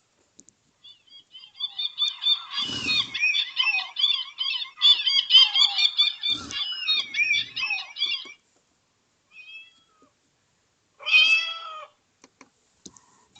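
Sagem my700X mobile phone playing one of its built-in ringtones, made of animal-like calls, through its small loudspeaker. A run of warbling calls lasts about seven seconds, then a short call and a final burst about eleven seconds in.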